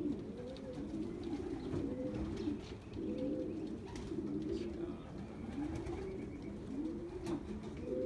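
Domestic racing pigeons cooing, several at once, with overlapping rising-and-falling coos about once a second.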